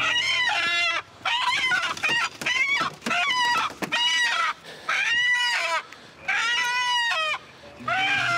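A chicken squawking loudly over and over, about one squawk a second, each call falling in pitch: the distress squawks of a chicken being grabbed and held by hand.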